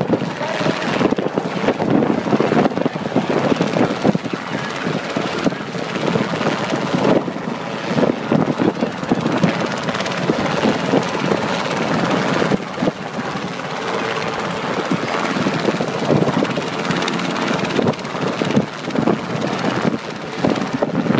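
Light two-bladed helicopter hovering low, a steady fast rotor chop over the engine noise.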